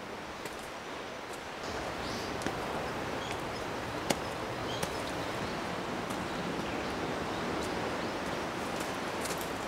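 Forest ambience: a steady rustle of leaves and wind, a little louder from about a second and a half in, with a few short high bird chirps and a few faint clicks.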